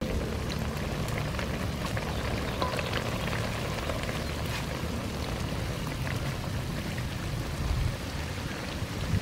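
Fish frying in oil in a wok over a wood fire: a steady sizzle with fine crackles as vegetable pieces are dropped into the pan.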